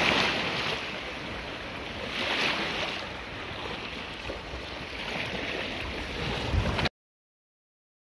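Shallow sea waves washing and splashing close around the microphone, with wind rumbling on it. The wash swells louder at the start and again about two and a half seconds in, then the sound cuts off abruptly near the end.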